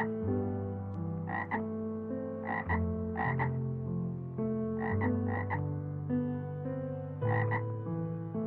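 Frog croaking: about eight short croaks, some in quick pairs, over background music of held notes that step in pitch.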